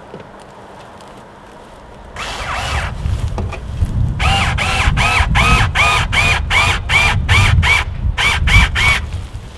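Power drill run in short trigger pulses, about fifteen quick bursts at roughly three a second after one longer run, each burst spinning up and winding down in pitch, as a screw is driven into the window frame.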